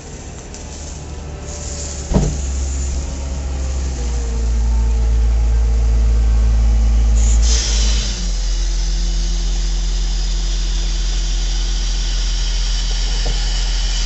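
Diesel engine of a loader running and growing louder over the first few seconds, with a single sharp knock about two seconds in. About halfway through, a steady high hiss joins and the engine note shifts.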